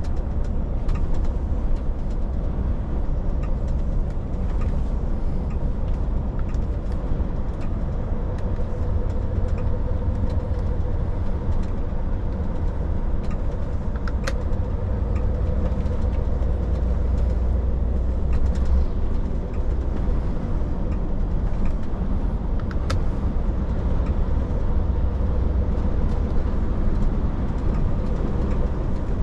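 Truck driving steadily on the road: a continuous deep engine and road rumble, with a faint steady whine and two brief light ticks midway and later on.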